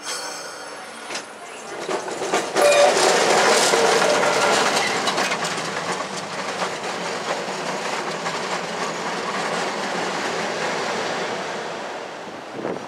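Peter Witt streetcar rolling along the rails, its steel wheels rumbling and clattering over the track. The sound swells a couple of seconds in and then slowly fades as the car moves away.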